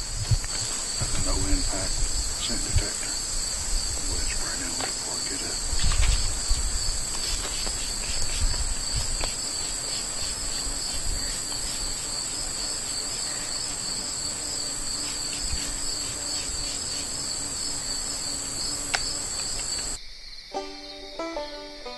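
Steady high-pitched chorus of summer insects, with low knocks and rustles from someone working at a metal ladder tree stand, loudest about six seconds in. About twenty seconds in the insects cut off and banjo music begins.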